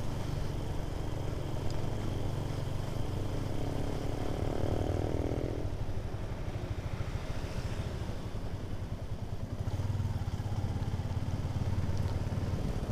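Motorcycle engine running steadily as the bike rides along, a low rapid pulsing rumble mixed with road noise. A higher engine note joins for a few seconds partway through.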